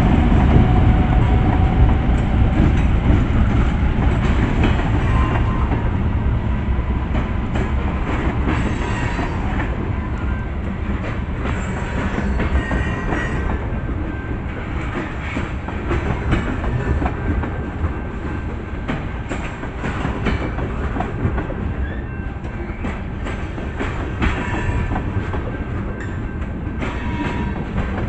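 Freight train passing close by. The diesel locomotives' low rumble is loudest at first and fades over the first several seconds, then a long string of tank cars rolls past with steel wheels clicking over the rail joints.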